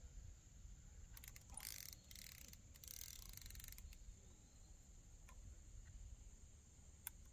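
Near silence with a faint steady high tone, a few light clicks, and two short hissing rustles about one and a half and three seconds in.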